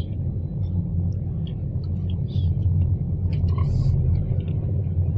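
Steady low road rumble heard inside a moving car's cabin, with faint scattered clicks and ticks.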